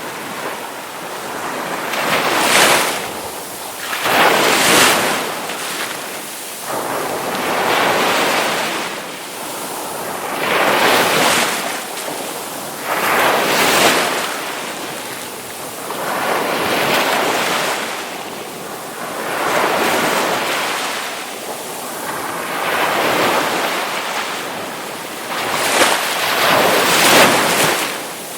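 Ocean waves breaking and washing up the shore, one surge after another every few seconds, each swelling and then falling back into a steady hiss of surf.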